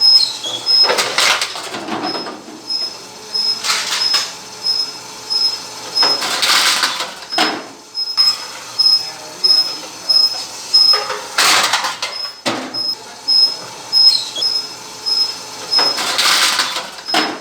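Homemade bottle reverse vending machine at work: short mechanical bursts every few seconds as its sorting flap shifts and bottles drop into the bins. Under them a high-pitched beep repeats about twice a second.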